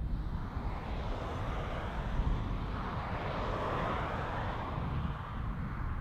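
Jet engine noise from a Boeing 777 freighter taxiing. It is a broad, steady roar that swells over the first seconds, peaks a little past the middle and eases off near the end, over a low, uneven rumble.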